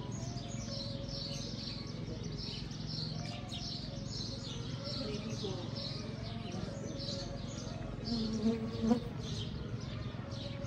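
Small birds chirping on and on in a rapid run of short, high chirps, over faint distant voices and a low steady hum. A person's voice is briefly louder about eight seconds in.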